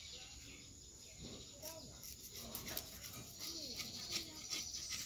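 Faint distant voices and animal calls over a steady high hiss, with a few short dry crackles as coconut husk fibres are handled and pulled.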